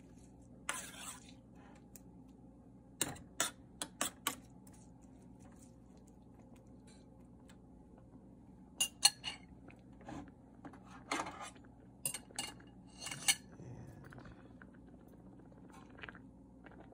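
A metal spoon clinking and scraping against a stainless steel pot while stirring, with scattered sharp metallic clanks, the loudest a quick pair about nine seconds in.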